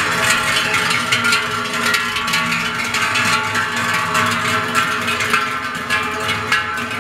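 Large cowbells clanging as they are carried along, with many irregular overlapping strikes and a lasting ringing.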